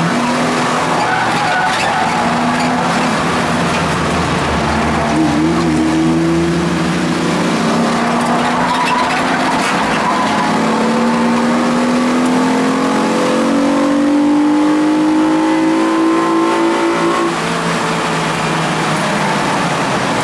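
Ford Contour race car's engine, heard from inside the cabin, pulling hard with its pitch rising steadily through the revs over a haze of wind and road noise. The pitch drops suddenly near the end as the revs fall away.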